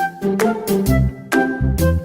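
Background music with a steady beat, bright bell-like notes over a bass line.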